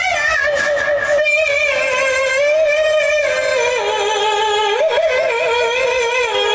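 A woman's voice chanting Qur'an recitation into a handheld microphone, holding long melodic notes with wavering ornaments. The pitch steps lower a little over halfway through.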